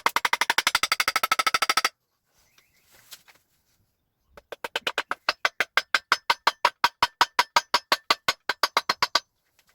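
Rapid, evenly spaced metallic hammering from a tool working on the engine, in two bursts: a fast rattle stopping about two seconds in, then a second run from about four and a half seconds that goes at roughly five blows a second and stops near the end.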